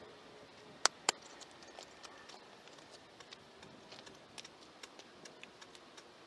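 Two loud, sharp clicks about a second in, followed by fainter, irregular ticks and knocks over a steady low hiss.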